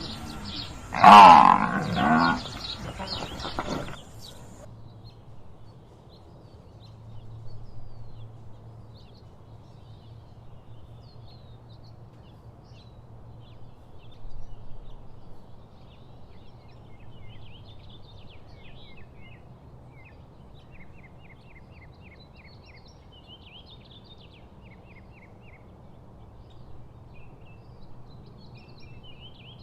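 A buffalo gives one loud, low call about a second in. After that there is a quieter steady outdoor background with faint bird chirps.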